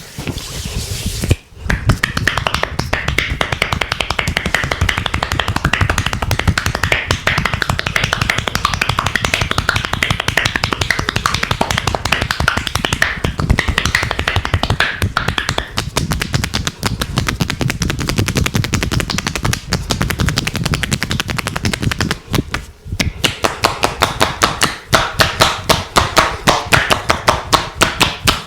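Hands striking skin in rapid percussive massage strokes (hacking and slapping tapotement), a fast continuous patter of strikes. After a brief break about three-quarters of the way through, the strikes come louder and evenly spaced, about four a second.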